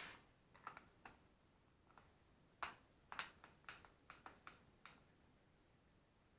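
A string of light, sharp clicks and taps, about a dozen spread unevenly over a few seconds, the loudest at the very start and again about two and a half to three seconds in.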